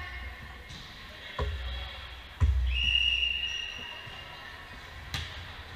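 A volleyball bounced twice on a wooden gym floor, each thud booming in the hall, followed by a referee's whistle blown for about a second. Near the end comes a single sharper smack, the sound of the ball being struck for the serve.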